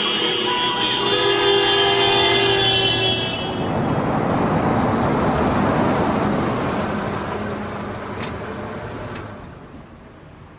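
Several car horns honking at once, their steady tones overlapping, for about the first three and a half seconds. Then comes an even rushing noise that fades away toward the end, with a couple of faint clicks.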